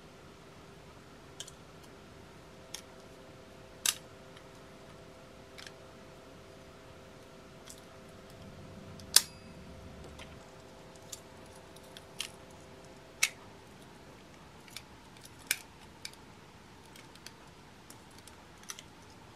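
Stainless-steel folding camping utensil set being handled, its fork, spoon and knife clicking against each other and against the handle plates as they are folded and unfolded. It makes sharp metallic clicks at irregular intervals, the loudest about nine seconds in.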